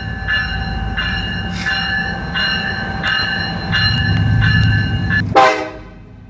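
Graham White electronic locomotive bell ringing, a repeating clang of about three strikes every two seconds over the vehicle's low road rumble. It stops about five seconds in and is followed by a brief, loud, falling blast that fades quickly.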